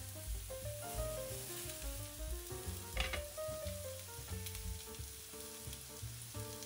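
King oyster mushroom slices sizzling in oil in a nonstick frying pan over medium heat. The first side is searing dry, before the mushrooms release their water, so it browns easily. There is a brief tap about three seconds in.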